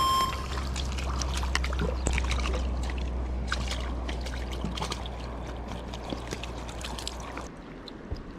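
Water splashing and trickling in and around a landing net as a freshly caught ayu is handled in the shallows, with many small irregular splashes and drips. A low rumble underneath cuts off suddenly near the end.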